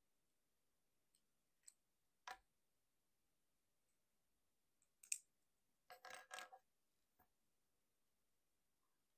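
Hard plastic parts of a Transformers Masterpiece Ratchet action figure clicking and snapping as they are handled and fitted. There are a few single clicks, the sharpest about five seconds in, then a quick run of clicks around six seconds.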